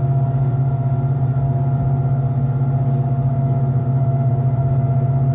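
Electric rack-railway railcar running downhill, heard from the driver's cab: a steady low electric drone from its drive, with a fainter steady whine above it.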